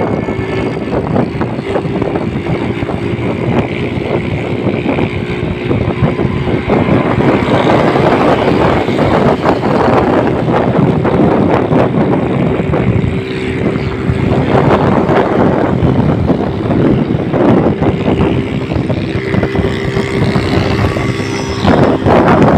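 Auto-rickshaw engine running hard at road speed, a steady drone with wind buffeting the microphone.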